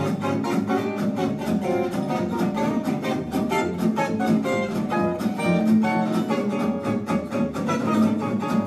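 Gypsy jazz played live on several acoustic guitars: a lead line of quick plucked notes over strummed rhythm guitar keeping a steady beat, with violin and double bass in the ensemble.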